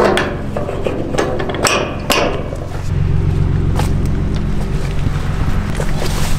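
A Ford pickup truck's engine running steadily, louder from about three seconds in, with a string of sharp metallic clanks and clicks over it. The first of these comes from a steel gate's slide-bolt latch being worked.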